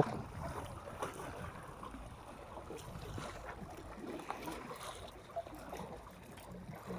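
Sea water lapping and sloshing faintly against concrete breakwater blocks, a steady soft wash.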